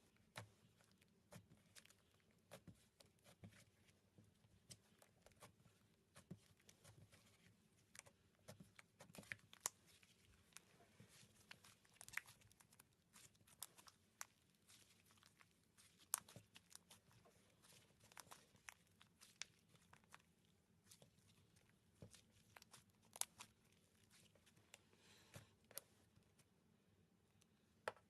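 Slime being squeezed and poked by hand, giving faint, irregular little pops and crackles.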